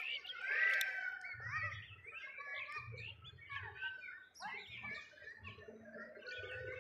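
Many small birds chirping and twittering in overlapping short calls, with soft low thumps recurring underneath.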